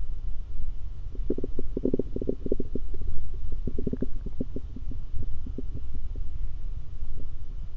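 Stomach growling: a quick run of gurgles starting about a second in, thickest over the next few seconds and then thinning out, over a steady low rumble.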